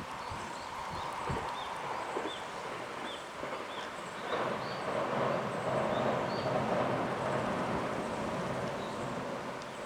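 Train running noise from a 287-series electric express on the line, with a few wheel-on-rail-joint knocks early on. About four seconds in, a broad rushing sound swells and holds, while short high chirps repeat every second or so.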